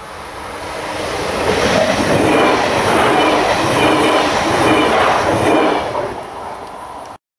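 Double-deck electric multiple unit passing close at speed: the noise builds as it approaches, peaks with rhythmic wheel clatter as the cars go by, then eases off. The sound cuts off suddenly near the end.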